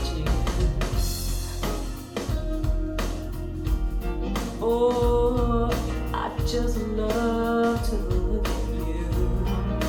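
A rock song with guitar, bass and a steady drum beat, played through SVS Ultra bookshelf speakers and recorded in the room.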